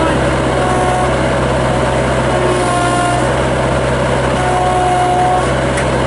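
Bobcat 763 skid steer's Kubota diesel engine running steadily at high revs as the machine drives, with a thin whine coming and going a few times over it.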